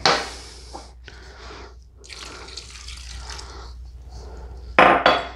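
Moist cornbread stuffing being tossed with broth in a mixing bowl: soft, wet rustling in uneven strokes with brief pauses, and a short, louder noise near the end.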